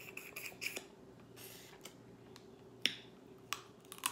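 Close-up eating sounds from crab legs: small crackles of shell and wet sucking as meat is pulled from the shell, with a few sharper clicks in the second half.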